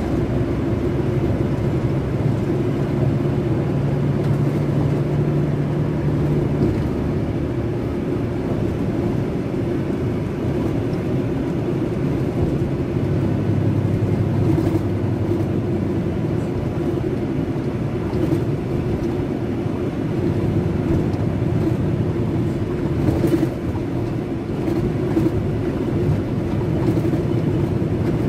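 Scania DC12 06 inline-six diesel engine (380 hp) of a Scania K380 bus running steadily, its low note shifting pitch a couple of times.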